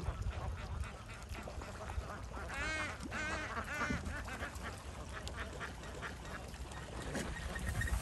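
A flock of domestic ducks quacking, with a burst of several quacks between about two and a half and four seconds in.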